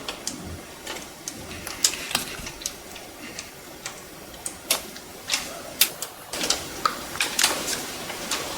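Close-miked eating of octopus: irregular sharp clicks and wet smacks from chewing and mouth sounds, coming more often near the end.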